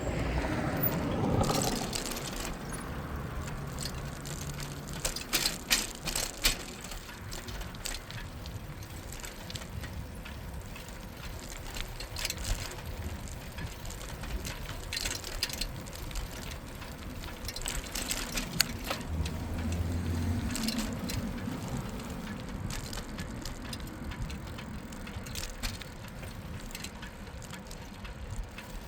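Bicycle riding: steady tyre and rolling noise with the freewheel ratchet ticking and sharp clicks and rattles from the bike. It opens with a falling whoosh over the first two seconds, and a low hum swells and fades about two-thirds of the way through.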